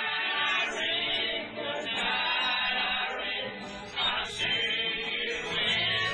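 Music with several voices singing together.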